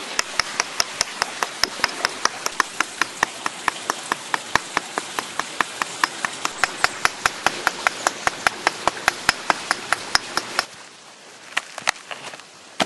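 Rapid, regular strikes of a hand-held tool with no handle, about five a second, which stop about ten and a half seconds in and give way to a few scattered knocks.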